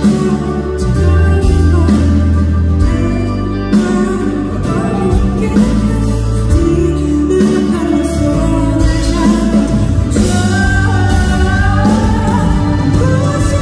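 Live band music: a singer's voice over strummed acoustic guitar, electric guitar and band, heard from the audience through the concert hall's PA.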